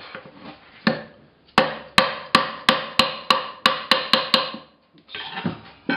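Hammer blows knocking a stuck bearing cover off an MGB axle's brake backplate: one blow, then a quick run of about ten ringing metallic strikes, roughly three a second. The cover is held on by paint and grime.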